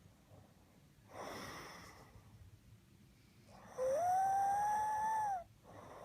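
A man snoring: a short rasping breath, then a loud whistling snore lasting about a second and a half that rises in pitch and then holds steady before cutting off, followed by a fainter breath near the end.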